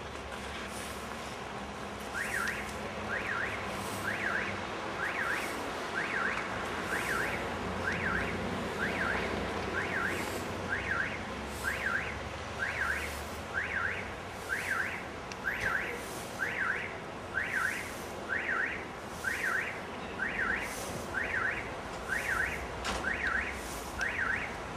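Electronic alarm siren, its tone sweeping up and down in pitch and repeating about once a second, starting about two seconds in.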